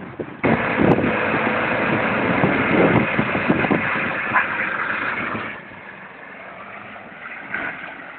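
Pickup truck engine running close by, loud and rough for about five seconds after a sudden start, then falling away to a lower level.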